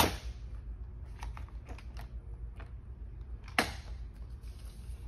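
Light clicks and taps from hands handling a Thule EVO clamp roof-rack foot on the car roof: a sharp click at the start, a few faint ticks about a second in, and another sharp click about three and a half seconds in, over a steady low hum.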